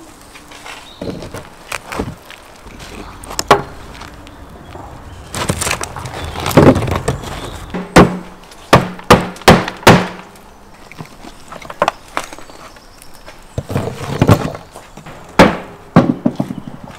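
Rubber mallet striking the hardened salt crust of a salt-baked whole salmon, with crunching and cracking as the crust breaks apart. A quick run of five blows comes about halfway through, with single blows before and after.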